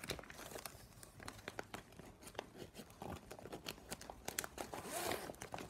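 Plastic strapping-band strips crinkling and clicking in the hands as their ends are tucked under the woven strips of a bag: an irregular scatter of small, sharp ticks.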